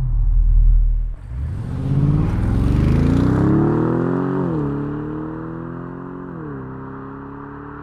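Bentley's turbocharged 4.0-liter V8 engine: a deep rumble, a brief dip just after a second in, then revving up with rising pitch. It shifts up twice, the pitch dropping each time, and the sound fades away gradually.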